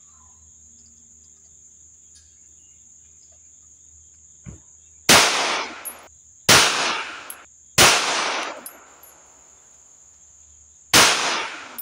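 Four 9mm shots from a CZ P-01 pistol, the first fired double action. Three come about a second and a half apart, then a pause of about three seconds before the fourth, each shot echoing briefly. A steady high insect buzz runs underneath.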